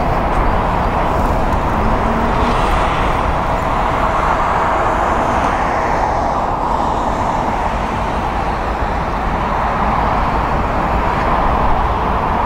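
Steady, even roar of an Embraer E175's twin GE CF34-8E turbofan engines running at a distance on the runway, with no clear rise or fall in pitch.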